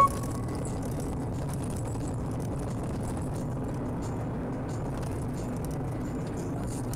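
A car driving, its engine and tyre noise heard as a steady low rumble from inside the cabin, with a sharp click at the very start.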